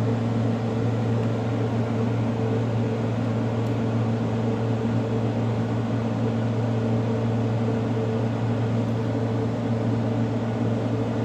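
LG window air conditioner running steadily on cool: a low compressor hum with the rush of its fan.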